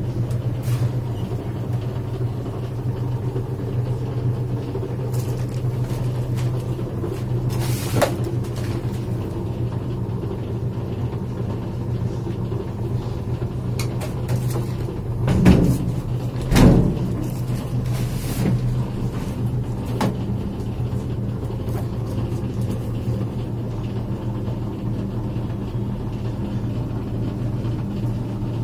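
Washing machine running with a steady low hum and rumble, and two louder knocks about halfway through: its drum bearing has failed, in the technician's judgement.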